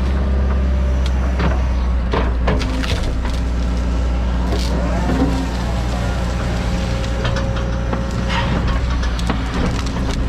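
John Deere 130G excavator's diesel engine running steadily under load, with a whine that rises and falls in pitch and scattered sharp knocks and cracks as trees and brush are grubbed out.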